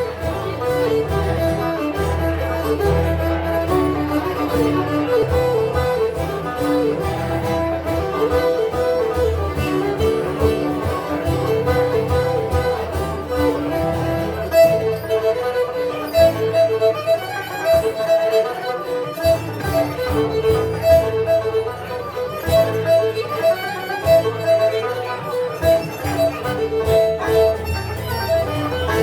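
Live instrumental folk tune: a high melody line over strummed 12-string guitar and banjo, with the low chording dropping in and out in the second half.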